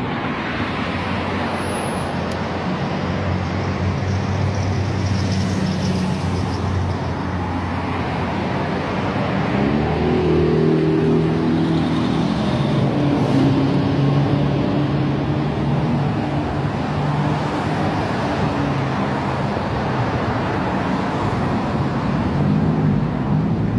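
Fire engine's diesel engine driving past amid road traffic. Its engine note rises and falls as it pulls past about ten seconds in.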